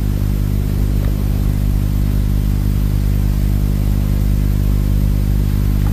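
Piston engine of a propeller aircraft running at a steady pitch: a low, even drone that does not rise or fall.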